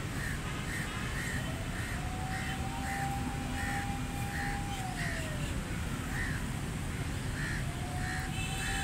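A crow cawing over and over in an even series, about one to two caws a second, over a steady whine that slides down in pitch about five seconds in and comes back near the end, and a low background rumble.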